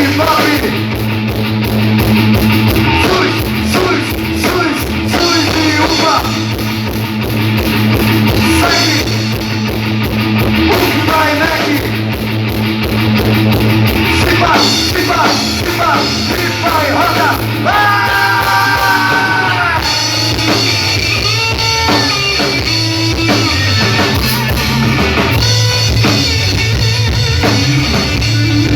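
A rock band playing live: drum kit beating steadily under electric guitar, with some singing, and a few held notes about two-thirds of the way through.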